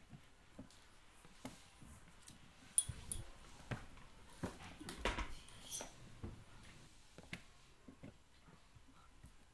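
Scattered soft knocks, bumps and cloth rustling as a person climbs through a window frame, with the sharpest knocks about three and five seconds in.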